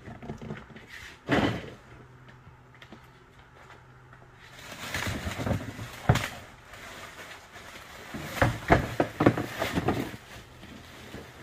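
Black plastic garbage bag rustling and crinkling as it is lifted, shaken and opened, with sharp crackles from about five seconds in until near the end.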